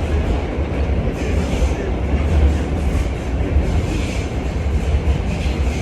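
New York City subway train running, heard from inside the car: a loud, steady low rumble with scattered clacks and rattles from the wheels on the rails.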